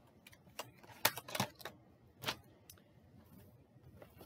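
Hands handling beauty products in plastic packaging. Several short, sharp clicks and crinkles come irregularly, the loudest about a second in and again a little past two seconds.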